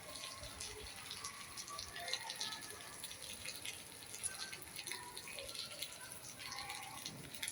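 Rain falling steadily, with many scattered drops pattering and dripping.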